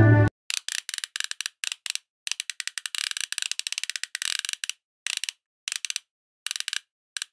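Fishing reel clicking in fast ratcheting runs with short pauses between them, as line is let out from the rod.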